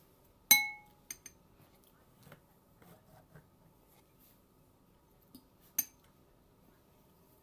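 Metal fork clinking against a glass bowl: a sharp ringing clink about half a second in, two lighter taps just after, and another ringing clink near the end.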